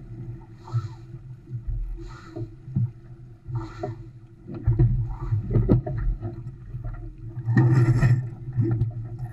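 Sailboat under way through choppy water: water splashing and rushing along the hull in repeated surges, over a steady low rumble, with scattered knocks from the boat and a louder rushing burst about eight seconds in.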